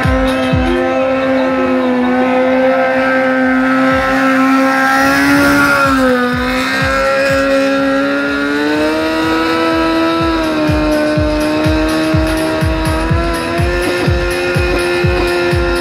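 Sport motorcycle engine held at high revs during a stationary burnout, its rear tyre spinning and squealing against the asphalt. The steady, high engine note dips briefly near the middle, then climbs to a higher pitch and holds there.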